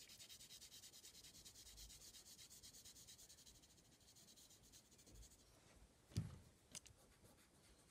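Graphite pencil shading on paper: soft, quick back-and-forth scratching strokes that fade out about four seconds in. A light knock follows about six seconds in.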